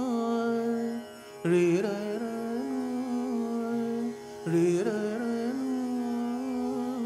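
Dhrupad alaap in Raga Kamboji: a male voice holds long notes and slowly glides between them over a steady tanpura drone. The voice drops away briefly about a second in and again after about four seconds, then comes back in with a stronger, ornamented attack.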